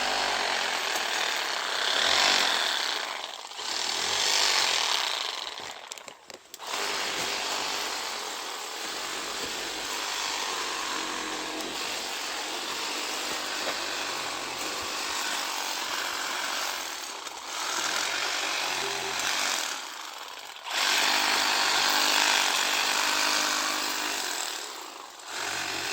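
Battery-powered rotary saw running and cutting, used like a chainsaw, in several long bouts with short pauses between them.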